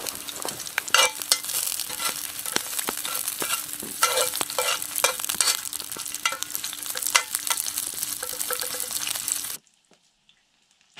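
Steak searing in a hot cast iron pan, a loud steady sizzle full of sharp pops and spits. It stops abruptly about a second before the end.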